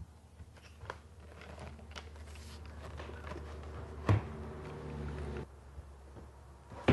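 Wooden knocks as tall 2x4 corner posts are handled and set into the corner sockets of a wooden floor base: a light knock about a second in, the loudest knock about four seconds in and another near the end. A low steady hum runs through the middle and stops about five and a half seconds in.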